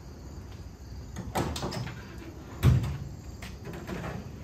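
Ford F-250 pickup's tailgate being unlatched and dropped open: a clatter of knocks about a second and a half in, then one loud metal bang near the middle as it falls onto its stops.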